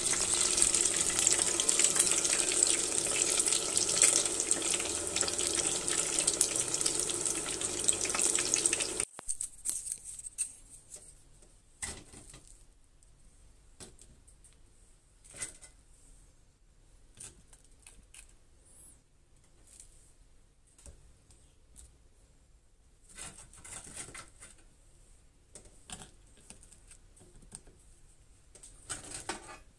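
Hot oil in a tempura pot sizzling and crackling steadily, cutting off abruptly about nine seconds in. After that, only faint scattered clicks of chopsticks against a rice bowl.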